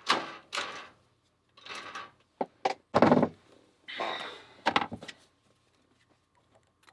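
A series of short knocks, scrapes and rustles as hands work to free a padlock's key from its packaging, with the strongest knock about three seconds in.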